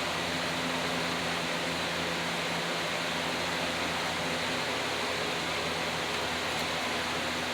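Steady hiss with a low, even hum underneath, unchanging throughout, like a fan or air mover running.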